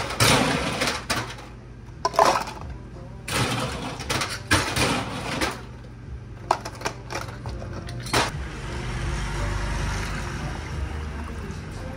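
Ice cubes clattering into a clear plastic cup as they are scooped and tipped in. They come in several bursts, with a few sharp clinks in the middle.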